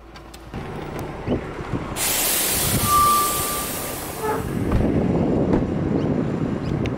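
Rumble of a heavy vehicle passing close by, with a sudden loud hiss lasting about three seconds and a brief steady tone in the middle of it.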